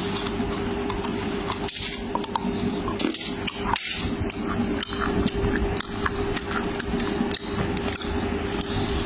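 Close-miked eating of kala jamun: soft wet chewing and mouth sounds with many short, irregular clicks, over a steady hum.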